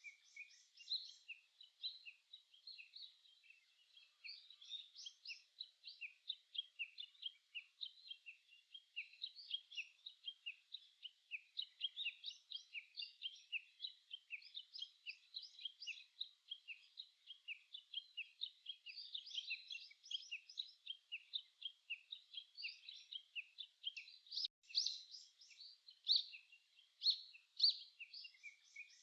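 A chorus of small songbirds, several birds singing and chirping at once in a steady stream of short high notes and song phrases that overlap with no real pause.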